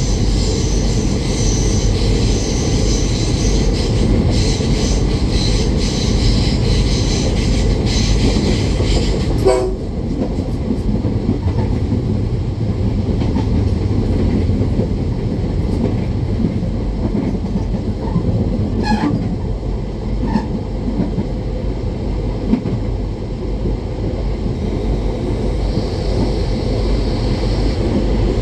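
Diesel train running along the rails with a steady rumble of wheels and engine. A high-pitched wheel squeal sounds through the first third and stops about nine and a half seconds in. Short horn calls come just before that and again about two-thirds of the way in.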